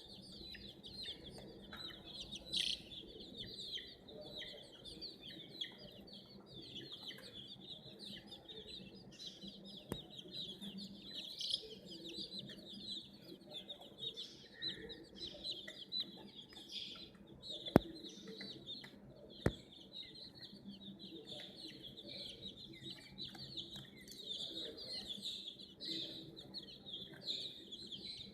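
A brood of baby chicks peeping continuously, many high-pitched chirps overlapping. Two sharp clicks, about a second and a half apart, come about two-thirds of the way through.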